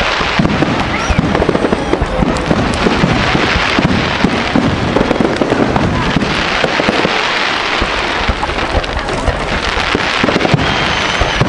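Fireworks display: a dense, continuous crackling and popping of many rapid small bangs, with a few faint whistles.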